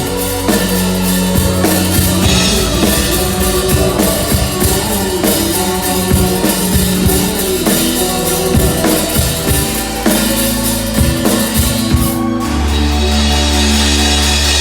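Instrumental band music of a Thai pop song, driven by a drum kit with kick and snare hits under bass and melody. About twelve seconds in the playing stops on a long held final chord.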